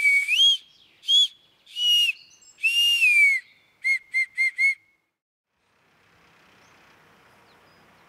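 Bark whistle (Maienpfeife) played: several held notes whose pitch bends down and back up, then four short toots about four seconds in. After a brief gap, faint outdoor background hiss begins.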